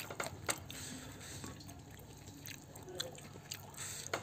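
Wet eating sounds as fried catfish and rice are eaten by hand: a few sharp, wet clicks and smacks from the mouth and the fingers on the food.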